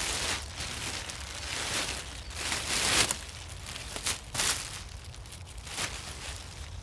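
Black plastic bin bag rustling and crinkling as it is pulled and worked over a log, in several bursts, the longest and loudest about two to three seconds in.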